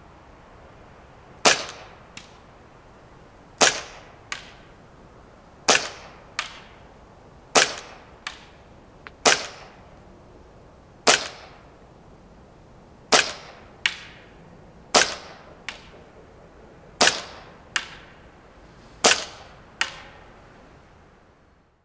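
Carbon8 M45CQP CO2 gas blowback airsoft pistol firing ten single shots about two seconds apart. A fainter tick follows most shots by about half a second.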